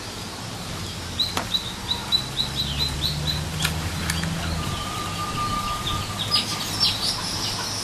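A bird chirping: a quick run of about ten short, high chirps, then a thin steady note for a couple of seconds, over a low steady hum.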